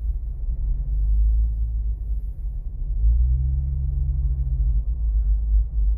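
Low, steady engine and road rumble of a 2011 Scion tC, heard from inside the cabin. A steadier engine hum comes in for a couple of seconds about halfway.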